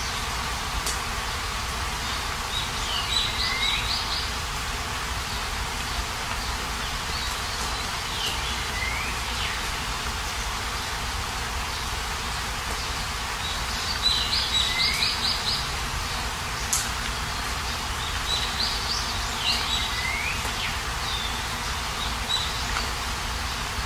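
Steady rain falling, with a bird singing four times, each phrase a quick run of high notes ending in a downward sweep, about every five seconds.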